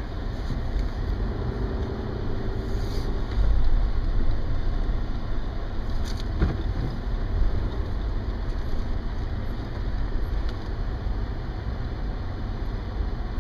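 Low, steady rumble of a truck's engine and tyres heard from inside the cab as it turns and drives off, with a couple of brief knocks about 3 and 6 seconds in.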